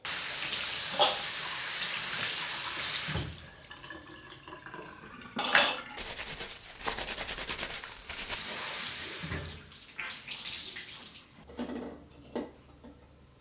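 Water running from a tap into a sink, in a loud spell for the first three seconds and another from about six to nine seconds in, with light knocks and clinks between and after.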